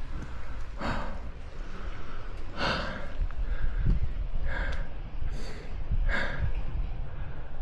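A mountain-bike rider breathing hard while resting after a tiring ride: four loud breaths, about two seconds apart, over a steady low rumble.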